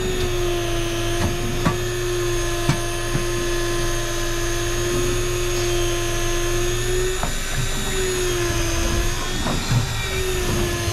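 Electric fishing reel's motor whining steadily as it winds line in against the weight of a hooked fish. A deeper hum under it drops away about seven seconds in, and a few sharp clicks come through.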